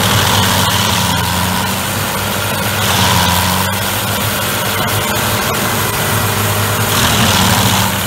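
Stump grinder's engine running with its toothed cutter wheel grinding into a fir stump and throwing wood chips. The grinding noise swells near the start, again about three seconds in and once more near the end.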